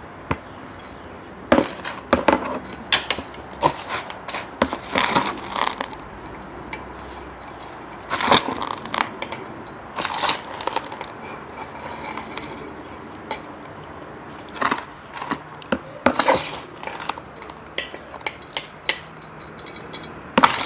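Gritty potting mix being handled and worked into a pot around a succulent's roots: irregular scrapes, rattles and small clinks, with a few louder grainy pours.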